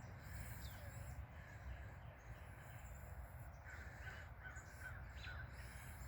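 Birds calling faintly in the distance, with a run of harsh calls a little past the middle and a few thin high chirps, over a low steady rumble.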